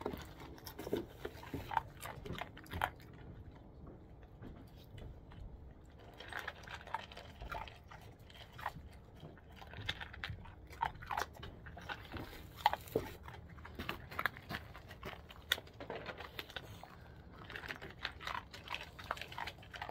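Dogs eating dry kibble: irregular, quick crunches of chewing, with a sparser stretch about three seconds in.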